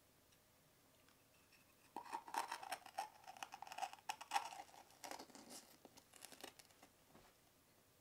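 A crisp cracker being bitten and chewed: a dense run of crunching starts about two seconds in and dies away near the end.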